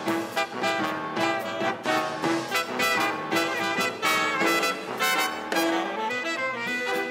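Instrumental big-band swing music with brass playing short notes over a steady beat.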